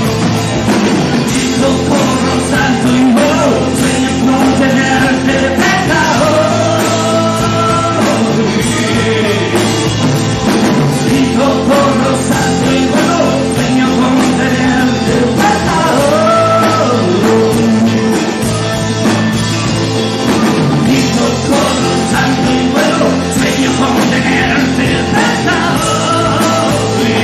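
Rock song playing: a band with a sung melody over it, loud and continuous.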